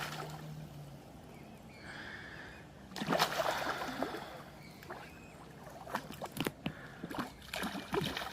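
Water splashing and sloshing as a hooked carp thrashes at the surface while being played toward the net, with a longer surge of splashing about three seconds in and a run of short, sharp splashes near the end.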